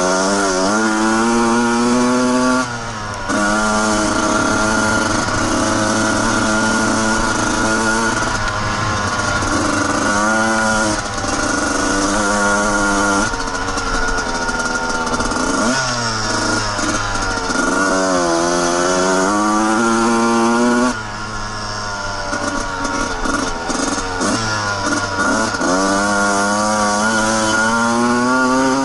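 Suzuki RM125 single-cylinder two-stroke dirt bike engine revving up and down over and over as the throttle is worked, its pitch rising and falling. The engine briefly drops off about three seconds in and again about twenty-one seconds in.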